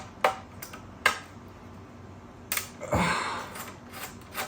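Sharp clicks and taps of a laptop's plastic case and parts being handled during disassembly, with a heavier knock and brief rustle about three seconds in.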